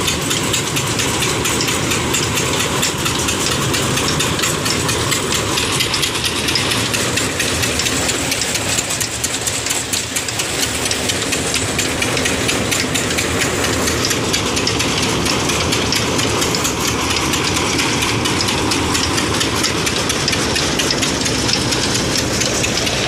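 Stationary diesel engine driving a belt-driven groundnut thresher, running steadily. Its rapid, even knocking is mixed with the hiss and rattle of the threshing machine.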